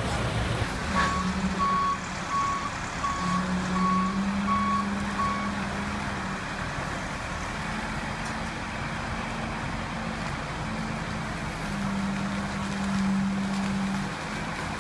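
Diesel earthmoving machinery (loaders and a dump truck) running steadily, with a backup alarm beeping about seven times in the first few seconds.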